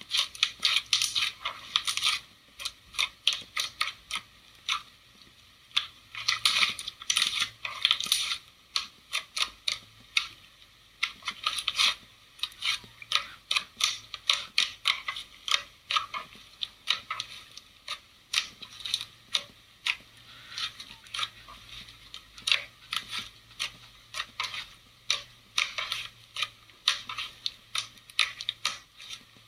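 Slime being squeezed and worked, giving a dense run of quick crackling clicks and pops, irregular and sharp, mostly in the upper range.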